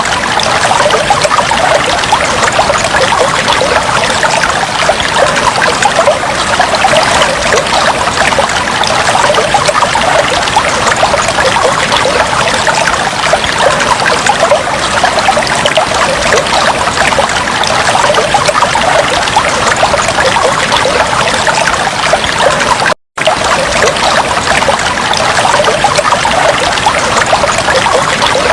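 Fish tank water trickling and bubbling steadily, a continuous fine splashing. The sound cuts out for an instant about 23 seconds in.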